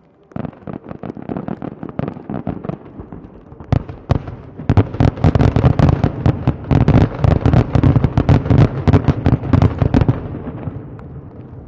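Fireworks going off in a rapid barrage of bangs and crackles that thickens about four and a half seconds in into a dense, loud volley, then stops about ten seconds in and trails off into a fading rumble.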